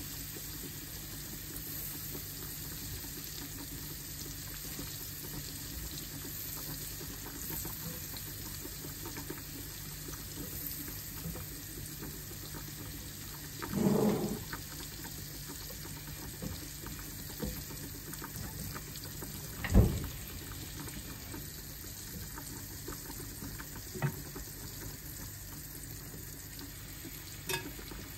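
Butter sizzling and frying in a non-stick pan as a wooden spatula stirs it, over a steady hiss. A few short knocks and clicks of utensils against the pan break in, a longer one about halfway and the sharpest about two-thirds through.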